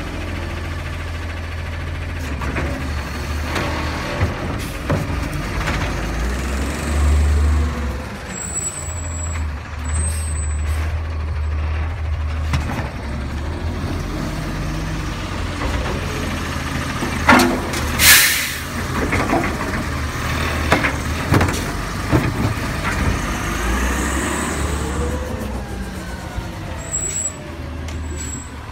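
Autocar garbage truck with a New Way Sidewinder side-loader body: its engine runs with a steady low drone while the hydraulic arm whines up and down in pitch. A sharp air-brake hiss comes a little past the middle, with short high squeals now and then.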